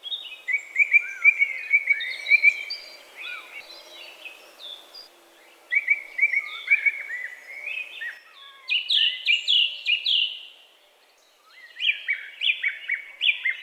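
Songbirds singing: phrases of quick repeated chirps, with a brief lull about eleven seconds in.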